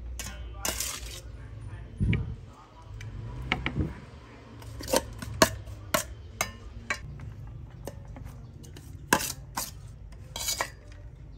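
Kitchen utensils clinking and knocking against a metal mixing bowl during food preparation, in a dozen or so irregular clinks with the sharpest about halfway through, over a steady low hum.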